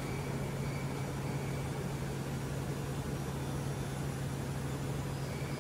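Solar panel sorting machinery running steadily: a constant low hum over an even rush of noise.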